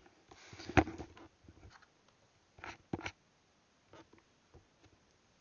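Handling noise as a headset is taken off and handled: scattered knocks and rustles, the loudest knock a little under a second in, then a few softer clicks.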